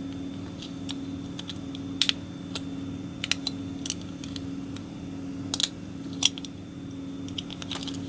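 Light, irregular clicks and taps of a coin-cell battery being handled and fitted into a small plastic key fob, a few of them in quick pairs, over a steady low hum.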